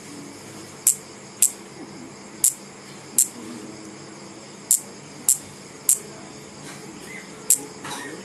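Electric bug zapper cracking as insects hit the charged grid: eight short, sharp snaps at irregular intervals over a faint steady background.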